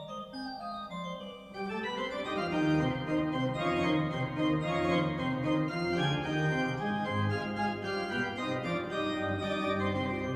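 Pipe organ playing: a softer passage, then about one and a half seconds in the sound grows louder and fuller with a rising run into full, busy chords.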